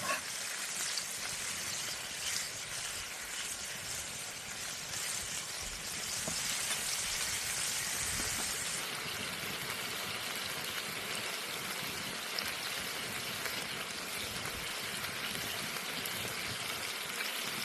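Food sizzling in a pan over an open fire: a steady, dense sizzle with small crackles, its hiss easing slightly about halfway through.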